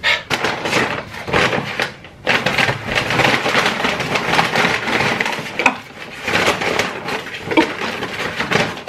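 A paper takeout bag rustling and crinkling as hands rummage inside it and pull out food containers, with a short lull about two seconds in.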